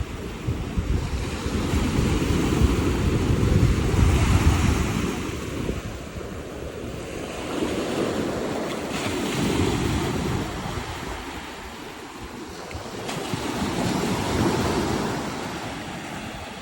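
Sea waves washing onto a sandy beach, the surf swelling and fading three times, with wind rumbling on the microphone.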